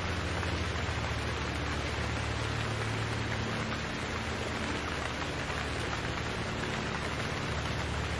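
Steady rain hiss with a low hum underneath.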